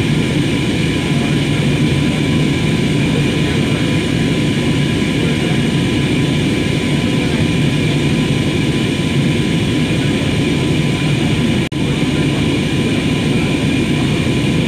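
Steady cabin noise of an AirAsia Airbus A320-family airliner at cruise, heard from inside the cabin: the constant roar of the jet engines and airflow over the fuselage, with a few faint steady tones above it. The sound cuts out for a split second near the end.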